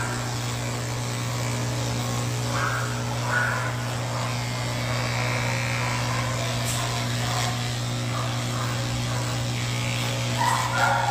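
Cordless electric pet clippers running with a steady hum while shaving through a heavily matted cat's coat.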